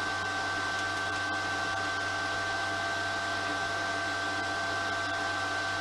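Kedr MultiTIG 2000P inverter TIG welder switched on and idling: its cooling fan whirs steadily, with a steady high whine and a low hum from the machine.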